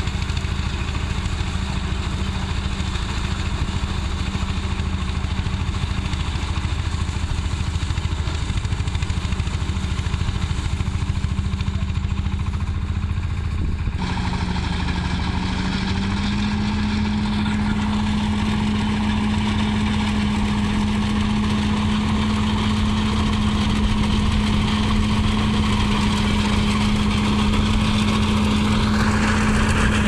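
Gahir Nippy 45 mini combine harvester running steadily while cutting paddy, its engine a constant drone with a mechanical clatter. The sound shifts suddenly about halfway through, the engine pitch steps up slightly soon after, and the machine grows louder and brighter near the end as it comes close.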